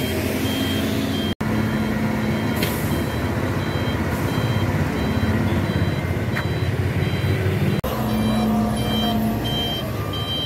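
Diesel engines of heavy construction machinery running steadily, with a reversing alarm beeping repeatedly over them. The sound cuts out briefly twice.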